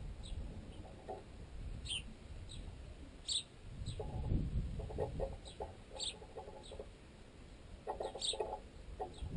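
Sparrows giving several short high chirps, and bursts of rapid pecking at bread wedged in a tent guy line. The pecking carries unnaturally loudly through the line into the tensioned tent pole that holds the camera, and comes through as quick runs of knocks.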